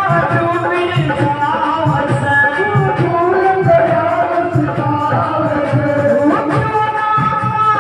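Live devotional bhajan: a woman singing into a microphone over amplified instrumental backing with a steady drum beat.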